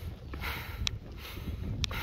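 Someone climbing stone steps on foot: breathing hard in a steady rhythm, with sharp clicks about once a second and wind rumbling on the microphone.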